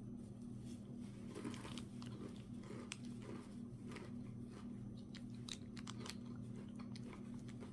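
Faint, irregular clicks and light scrapes of small metal parts being handled: a Ford Expedition ignition lock cylinder with its key and tumblers being worked during a rebuild. A steady low hum runs underneath.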